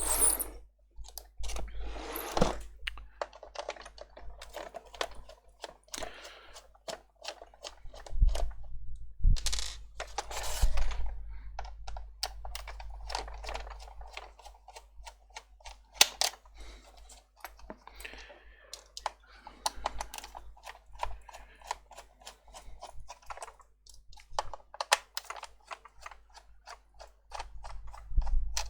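Irregular small plastic clicks, knocks and scraping as an Audi TT instrument cluster's plastic housing is handled and taken apart by hand.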